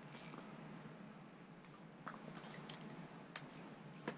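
Faint handling noises: scattered light clicks and a brief rustle, with a sharper click near the end as a hand takes hold of the camera on its tripod.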